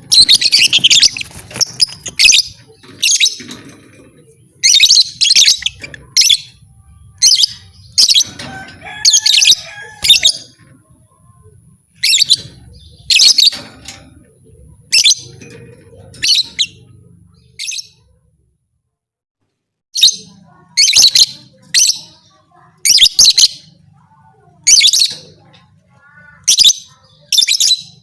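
Lovebird chirping in short, sharp, high-pitched bursts, roughly one a second, with a brief break about two-thirds of the way through.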